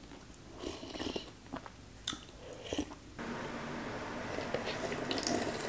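Faint eating sounds: soft sips and slurps of hot pot soup from a metal spoon, with small clicks. About three seconds in, a steady low hiss comes in suddenly as the paper bowl is tipped up to drink the broth.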